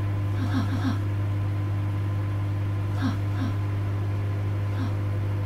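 Microwave oven running with a steady low hum. Over it come short, falling, pitched sounds in small groups of two or three, a few times.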